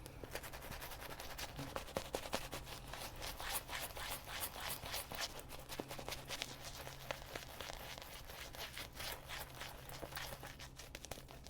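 Shaving brush working a creamy shaving-soap lather, a continuous wet scratching and crackling of bristles and foam.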